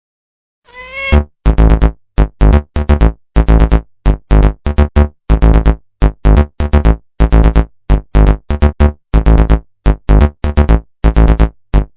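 A short cat meow about a second in, then loud electronic synthesizer music in short, choppy stabs.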